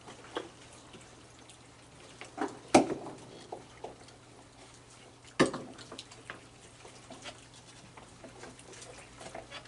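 Raccoons eating and dabbling at a water bowl on a wooden deck: small wet splashes and scattered light clicks. Two sharp louder knocks come about three seconds and about five and a half seconds in.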